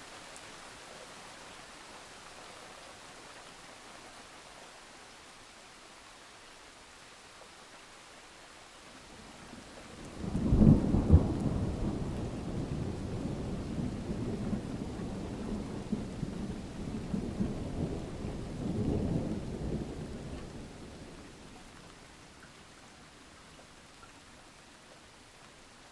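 Steady rain falling, then about ten seconds in a sudden loud clap of thunder that rolls on as a low rumble for about ten seconds, swelling once more near the end of the rumble before it fades back to the rain.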